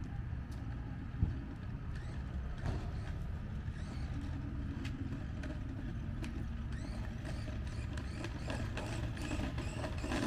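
A steady low rumble of a running vehicle engine, with a few light clicks and one short knock about a second in.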